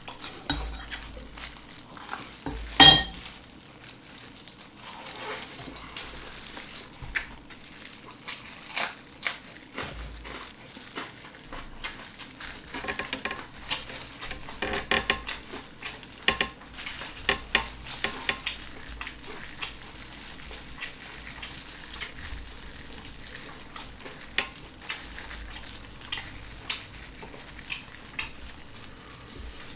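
Close-miked mukbang eating sounds: wet chewing and smacking, and the squelching of soy-marinated raw shrimp pulled apart by gloved hands, as a run of small crackles and clicks. One sharp knock stands out about three seconds in.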